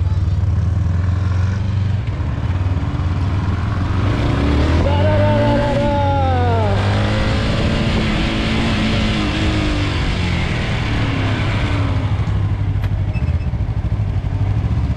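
Sport motorcycle engine running low and steady, then revving up and changing pitch several times as the bike pulls away and gathers speed, with wind rushing over the helmet-mounted microphone. The wind noise dies down and the engine eases back near the end.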